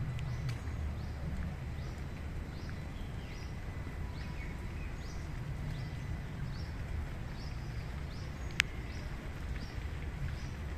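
A bird repeating a short, high, falling chirp about twice a second over a steady low outdoor rumble. One sharp click sounds about two-thirds of the way through.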